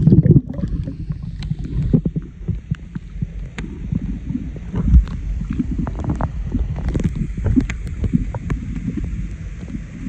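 Muffled underwater sound of a microphone held under the sea: a low rumbling wash of moving water with scattered clicks and crackles. Heavy low thumps come at the start, as it goes under, and again about halfway.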